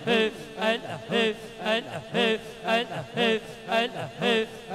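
A man's voice chanting a short devotional phrase over and over into a microphone, in a steady rhythm of about two repetitions a second, as in zikr.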